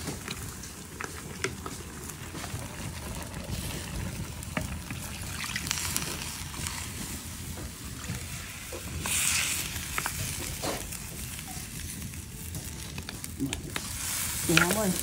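Turkey pieces sizzling in a hot clay pot while water is poured in from a wooden bowl, with a louder burst of hissing and splashing about nine seconds in. A wooden spoon stirs and knocks against the pot.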